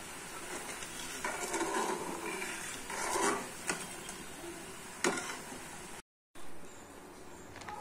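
Metal spoon stirring and scraping in a metal pan of boiling sugar syrup, with two sharp clinks of spoon against pan, about three and a half and five seconds in. The sound drops out briefly near the end.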